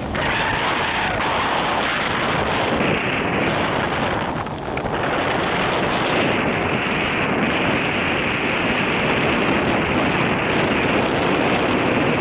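Wind buffeting the camera microphone: a steady, loud rumbling rush with no tone in it, easing briefly about four seconds in.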